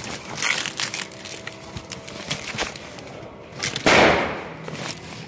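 Dry flowers and leaves rustling and crackling as they are tipped into a compost drum, with one louder rush of material about four seconds in.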